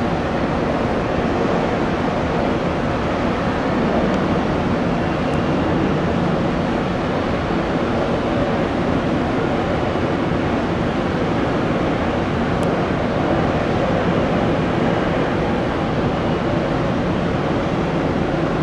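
Jet airliner engines running loud and steady, an even rush of noise with no change in pitch.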